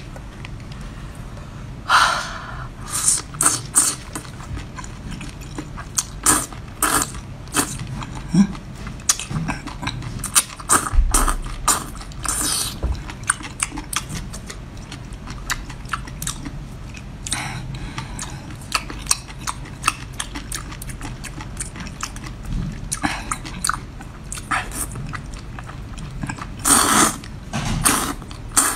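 Close-mic eating sounds from spicy seafood: wet chewing, sucking and lip smacks, with many short sharp clicks and a few longer slurps.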